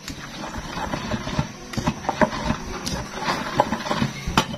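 Stone pestle pounding a wet red paste in a stone mortar: a quick, irregular run of dull knocks, the sharpest strike near the end.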